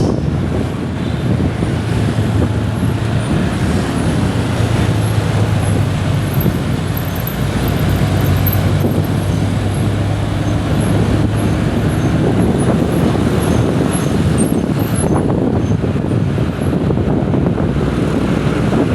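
Steady road traffic noise with wind rumbling on the microphone; a low engine hum rises out of it for several seconds in the middle.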